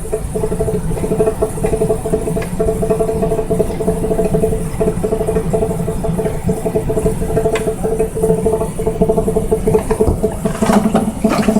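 A machine running with a steady, fluttering hum, with a few light clicks and some clatter near the end as the pitch of the hum shifts slightly up.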